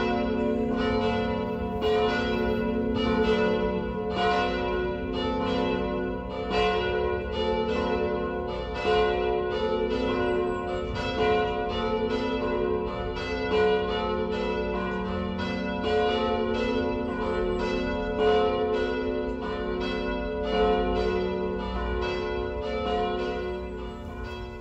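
Several church bells pealing together, their strokes overlapping at an uneven pace while the tones ring on, fading down near the end.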